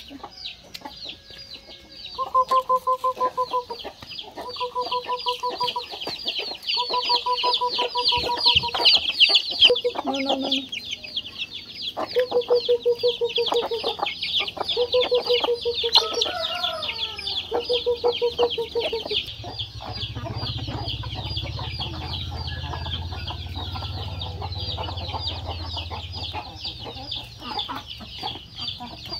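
Small chicks peeping constantly and rapidly, with a hen clucking in short runs of quick calls.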